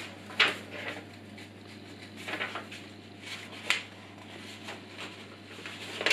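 Handling noise: an instruction sheet rustling and small parts being picked up on a desk, a few short sharp rustles and clicks spread unevenly through, over a low steady hum.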